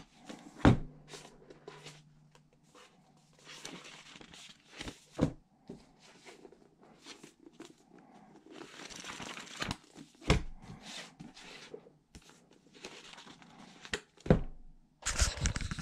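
Paperback books being handled on a desk: covers and pages rustling as they are turned over and swapped, with four sharp knocks as books are picked up and set down.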